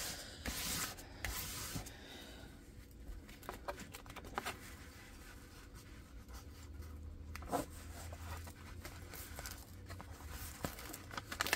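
A hard plastic tool rubbing and scraping across the paper cover sheet of a diamond-painting canvas to flatten it, with paper rustling. The strokes are heaviest in the first two seconds and again near the end, with one sharp click in between.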